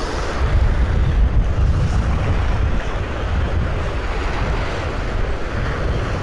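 Strong wind buffeting the microphone in a steady low rumble, over the wash of surf breaking on the beach.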